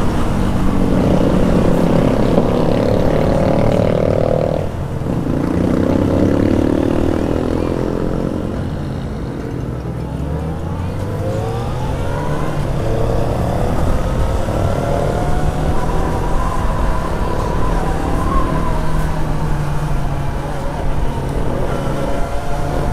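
Yamaha XJ6's 600 cc inline-four engine heard from the rider's seat, revving up through the gears. It breaks off at a gear change about five seconds in, eases off for a few seconds, then pulls up in pitch again and holds a steady cruise.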